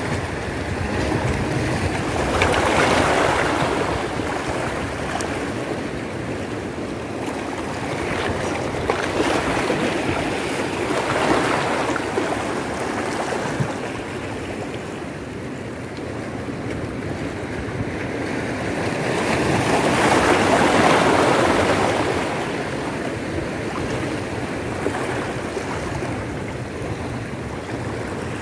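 Small sea waves washing in over shoreline rocks, a steady rush of surf that swells and fades as each set comes in, loudest about three seconds in and again around twenty seconds in.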